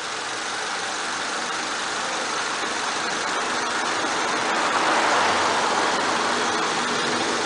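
The 2001 Honda Civic's engine idling steadily with a broad hiss that swells slightly around the middle, while old power steering fluid is being drained during a fluid flush.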